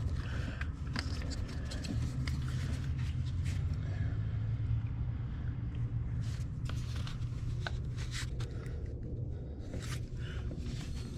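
Steady low rumble with scattered small clicks and knocks from hands and tools working a spark plug wire.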